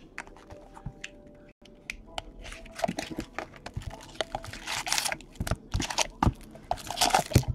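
Hands opening a sealed box of trading card packs: packaging crinkling and rustling, with scattered clicks of cardboard. The crinkling is loudest about five and seven seconds in.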